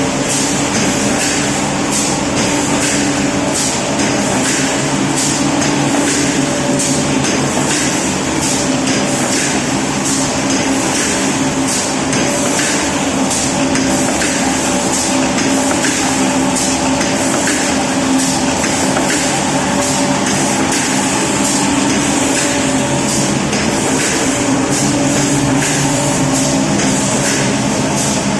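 Automatic aluminium foil food-container making machine running: a steady mechanical hum with a held tone and regular, evenly spaced sharp clicks from its stroke cycle.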